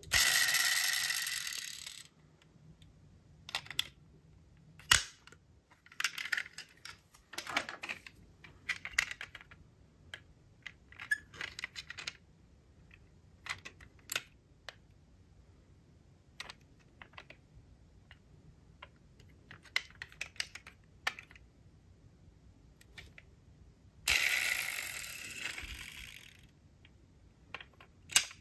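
Handling of small diecast model cars and their packaging: scattered light clicks and taps, with a loud rustling scrape lasting about two seconds at the start and another near the end.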